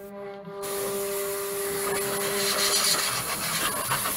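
CNC router's spindle running with the bit routing letters into a wooden board: a steady machine whine with the hiss of the cut, which comes in under a second in. It is not really loud.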